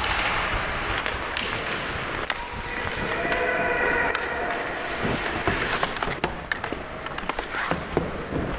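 Hockey skate blades scraping and carving on the ice, with several sharp clacks of sticks and pucks.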